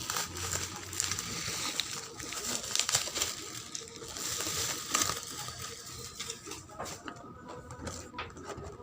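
Packaging crinkling and rustling in a stream of quick crackles as a new toy is unwrapped, quieting near the end.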